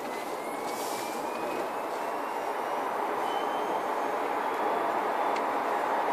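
Cabin noise of a Volkswagen Golf Blue e-Motion electric car driving: steady road and tyre noise with a faint high whine from the electric motor, rising slowly in pitch and growing a little louder as the car gathers speed.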